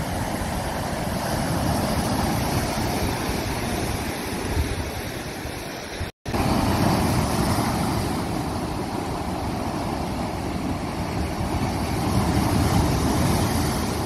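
Sea surf breaking and washing over boulders on a rocky shore: a steady, full rushing noise with a deep rumble underneath. The sound breaks off for an instant about six seconds in.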